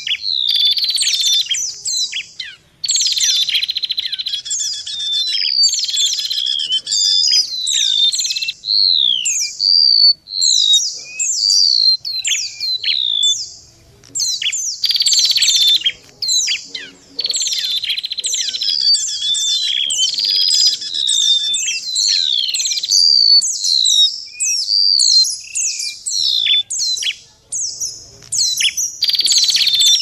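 Bird-lure recording of small songbirds calling without a break: golden-bellied gerygone (remetuk laut), white-eye (pleci) and red-headed prenjak voices layered together. It is a dense mix of quick, high, descending whistles and rapid chattering trills, played as a lure to draw wild birds in.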